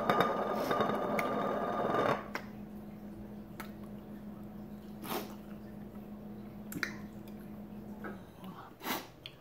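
Faint mouth clicks and smacks from chewing and swallowing a dry mouthful of drained canned tuna, over a low steady hum that stops about eight seconds in. A short rustle comes first, lasting about two seconds.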